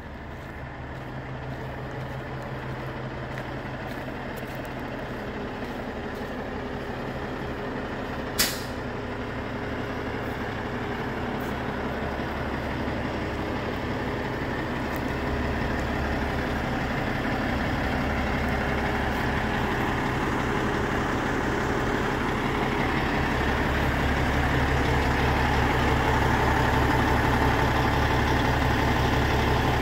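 Cummins ISX15 diesel of a Peterbilt 367 idling steadily, growing louder throughout. About eight seconds in there is one short, sharp hiss of released air.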